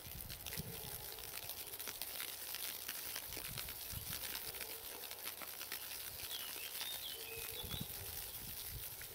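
Outdoor ambience: a low, uneven rumble of wind on the microphone with soft, irregular pattering ticks, and a small bird chirping a few times about six and a half seconds in.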